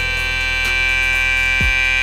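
Metal-bodied Kemei KM-2293 cordless hair trimmer running at full speed, about 7,750 RPM: a steady high-pitched whine with a faint tick about once a second.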